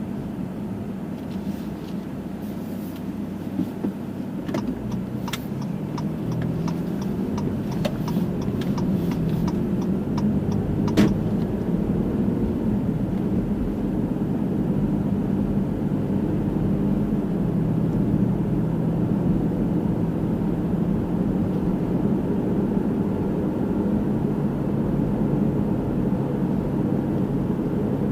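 Car engine and road noise heard from inside the cabin while driving, a steady low hum that grows a little louder after a few seconds as the car picks up speed. For several seconds early on there is a run of evenly spaced ticks, then a single sharp click about eleven seconds in.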